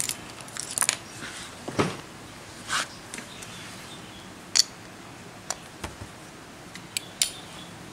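Scattered clicks and short scrapes of a motorcycle electric starter motor being handled and a screwdriver being set to the bolts of its housing to take it apart. The sharpest click comes a little past halfway.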